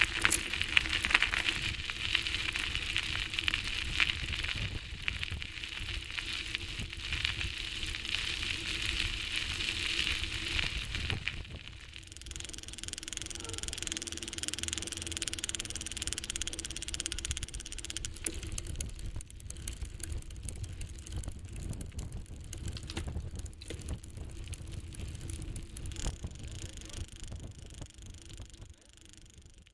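Bicycle being ridden: a steady rushing hiss of the tyres and drivetrain with many small rattling clicks, louder for the first ten seconds or so, then quieter, fading away at the end.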